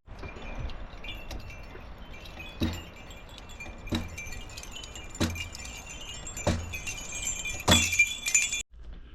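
Metallic chiming and jingling, with a ringing tone that holds and a strike about every second and a quarter, the last strike the loudest; it cuts off suddenly near the end.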